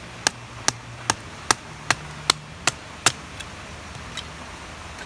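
A run of sharp, evenly spaced strikes, about two and a half a second, like steady hammering, stopping a little over three seconds in. Two faint taps follow.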